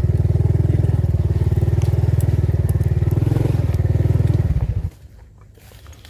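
A small engine running at a steady speed, with rapid even low-pitched pulses, that stops abruptly about five seconds in.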